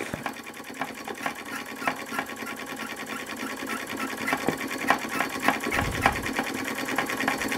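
Empire B-43 model steam engine running steadily, its rapid, even beats making a fast mechanical clatter.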